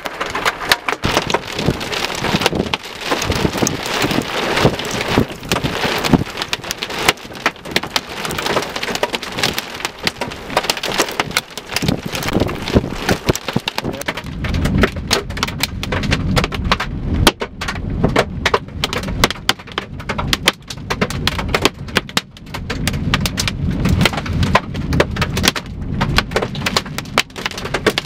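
Heavy rain pattering hard and densely close to the microphone, with a low rumble joining about halfway through.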